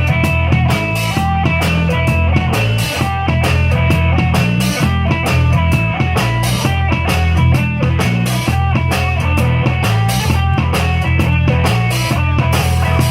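Band playing rock-style music: drum kit keeping a steady beat under bass and guitar.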